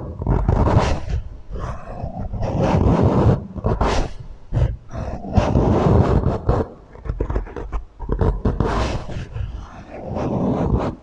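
Small objects being scraped, rubbed and tapped close to the microphone through a heavy echo effect, with a few sharp clicks standing out near the middle.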